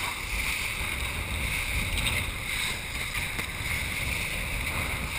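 Steady rush of water and wind as a kiteboard rides over lumpy, choppy sea, with wind buffeting the chest-mounted camera's microphone.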